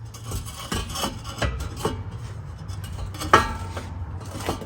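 Metal exhaust pipe clanking and scraping as it is handled and slid into place at the muffler, with a louder ringing clank about three and a half seconds in.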